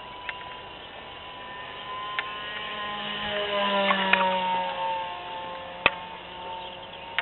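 Electric motor and propeller of a small RC model plane (a Guillows Cessna 150 conversion) whining in flight at part throttle. It grows louder about three seconds in, then drops in pitch and fades as the plane passes by. A few sharp clicks sound over it, the loudest about six seconds in.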